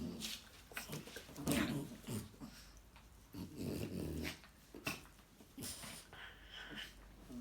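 A French bulldog and a Chihuahua growling in play, in short irregular bursts.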